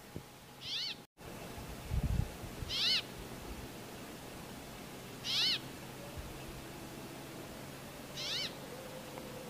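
Brambling calling: four drawn-out, wheezy 'dzweee' calls, two to three seconds apart, each rising then falling in pitch. A low thump comes about two seconds in.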